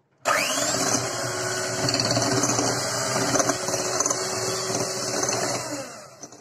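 Electric hand mixer switched on at high speed, its motor whining up in pitch as it spins up, then running steadily as its beaters whip cream toward stiff peaks. It winds down and stops near the end.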